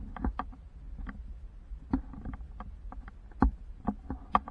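Camera handling noise: irregular clicks and knocks as the camera shifts on the sand, over a low rumble.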